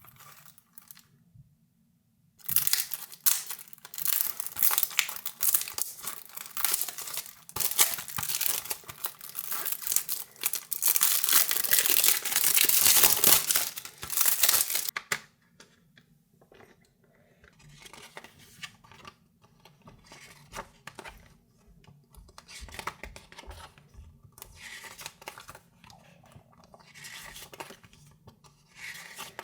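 Plastic shrink-wrap being torn and peeled off a CD, a long run of loud crackling tearing and crinkling. About halfway through it gives way to quieter clicks and rustles as the CD packaging is handled.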